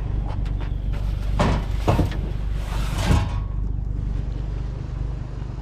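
Curbside scrap being handled and loaded, with three clanks and scrapes about one and a half, two and three seconds in. A vehicle runs steadily and low underneath.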